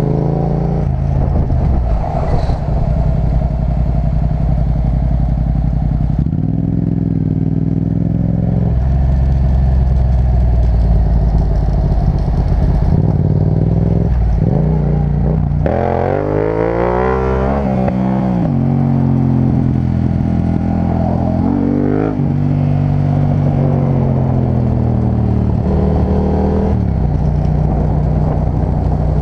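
Yamaha MT-07's parallel-twin engine under way, heard from the rider's seat, its revs falling and rising repeatedly as the bike slows for bends and accelerates out. About halfway through the engine climbs through the revs in quick steps as the bike picks up speed again.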